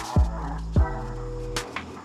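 Background music with a beat: deep bass drum thumps about a quarter second and again just under a second in, over a held chord with crisp percussion clicks.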